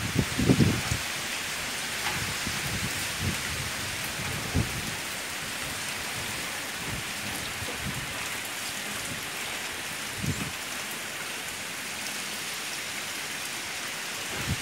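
Heavy rain hissing steadily in strong hurricane wind from Hurricane Beryl, with a few brief low gusts rumbling on the microphone.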